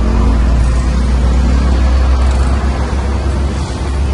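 A steady low rumble of background noise.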